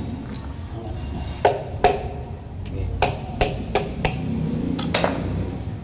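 Sharp metallic knocks from tools striking engine parts during an engine teardown: about eight taps at uneven intervals, bunched in the second half, over a steady low hum.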